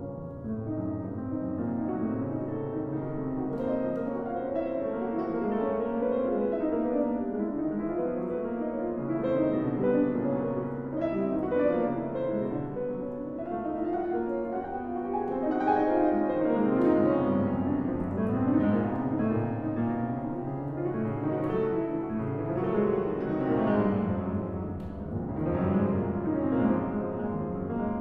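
Piano playing classical music: a dense passage of many notes that enters right at the start after a brief hush and swells and ebbs in loudness throughout.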